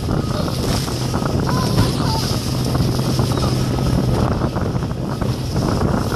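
A Carolina Skiff J16 running at speed in open water: a steady outboard motor drone under heavy wind noise on the microphone and the splash of the hull through the waves. The hum eases off slightly after about four seconds.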